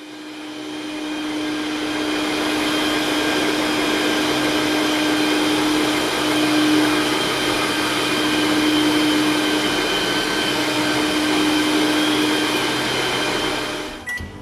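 An electric household appliance motor spinning up over the first couple of seconds, then running steadily with a hum and hiss. It cuts off near the end.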